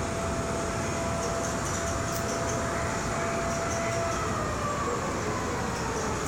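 Model trains running on a large model railroad layout: a steady blend of train running sounds and hall noise. A thin held tone sounds for about the first four seconds, and a faint falling tone follows.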